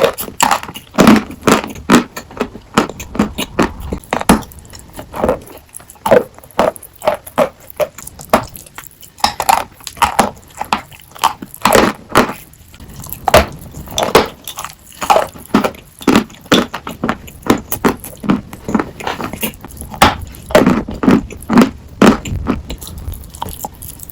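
Sawn chalk being bitten and chewed: a run of crisp, irregular crunches, several a second, with short pauses between clusters.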